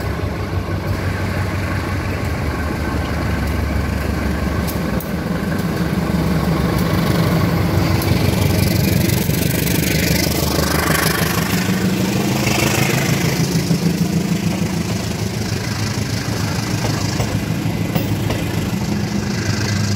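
KAI diesel-electric locomotive departing with a passenger train, its engine running steadily as it pulls past close by, then the coaches rolling by. It is a little louder around the middle, as the train passes nearest.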